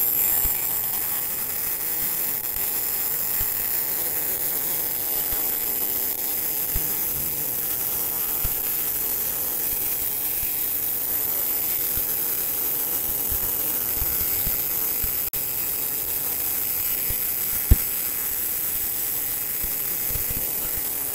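MIG welding arc from a Smartmig 265 Tenya welder running steadily at about 190 A, laying a straight bead on 8 mm thick steel plate: a continuous even hiss, with one sharp tick about three-quarters of the way through.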